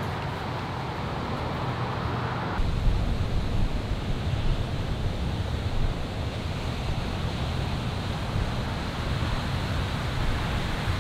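Steady rush of wind and breaking surf, with wind buffeting the microphone; a deeper rumble of heavy whitewater comes in about two and a half seconds in.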